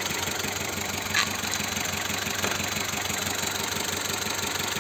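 Car petrol engine idling with a misfire: one cylinder is not firing, which makes the engine shake. A short click comes about a second in.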